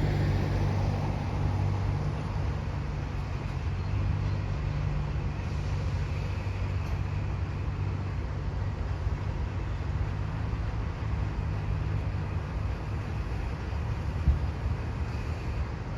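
ALCO diesel-electric locomotive engine running with a steady low rumble that eases slightly in level, with a brief knock near the end.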